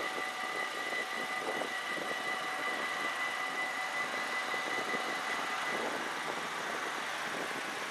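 Level-crossing warning bells ringing with a steady high tone while the barrier arms swing up, fading out about six seconds in, over steady wind and outdoor noise.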